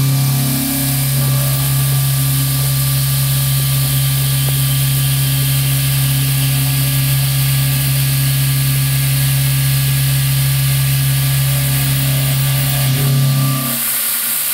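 Doosan NHM 6300 horizontal machining centre milling 316 stainless steel with a Kennametal HARVI I TE end mill: a steady low hum from the cutter in the cut over a loud hiss of coolant spray and flying chips. The low hum drops out briefly near the end.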